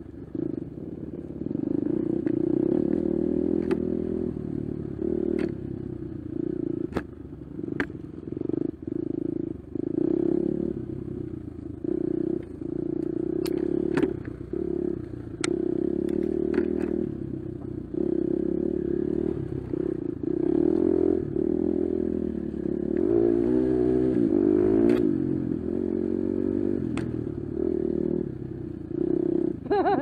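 Four-stroke enduro dirt bike engine climbing a rough trail, its note swelling and dropping with the throttle, with a longer run of rising and falling revs about two-thirds of the way through. Sharp knocks and clatter from the bike over the rough ground come through often.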